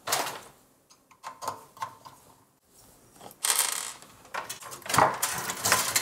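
Handling noise of an SFX power supply being fitted into a small metal PC case: knocks and clunks of the unit against the case frame, with a short rustle of its cables about three and a half seconds in and more clunks near the end.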